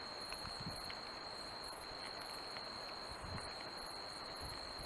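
Night insects chirping in an even pulsing rhythm over a steady high whine and hiss, with a couple of faint low thumps from the deer at the feeder.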